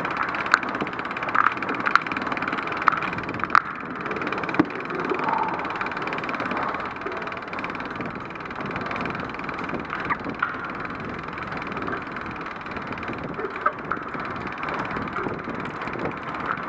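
Steady hiss of wet road and rain noise during a bicycle ride in the rain, with a few sharp clicks in the first few seconds.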